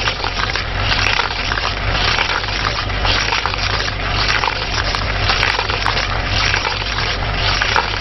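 A machine running with a steady low hum under a loud, continuous rushing noise dotted with rapid crackles.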